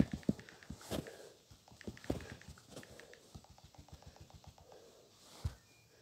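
Faint, irregular small clicks and taps close to a phone's microphone, several a second, with one louder low tap about five and a half seconds in.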